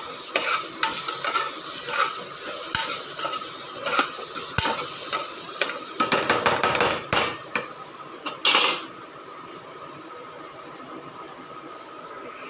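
A spoon scraping and knocking against the pot while onions and ginger-garlic paste fry in ghee with a sizzle, sautéed until the paste's raw smell goes. The stirring stops about nine seconds in, leaving only a steady, quieter sizzle.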